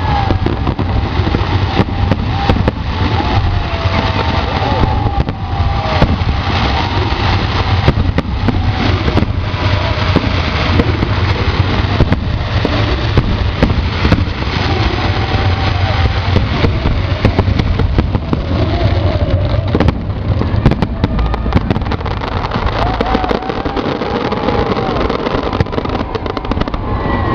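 Fireworks display: a dense, continuous barrage of bangs and crackles over a steady low rumble.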